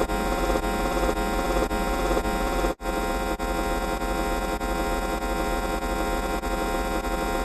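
A dense, droning cacophony of many stacked steady tones, like overlaid electronic sound effects, with a faint pulse about twice a second. It cuts out for an instant a little under 3 s in, then carries on.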